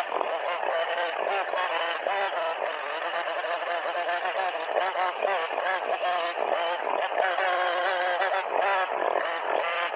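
Chainsaw engine running and carving into a wooden log, played back fast-forwarded, its pitch wavering up and down rapidly.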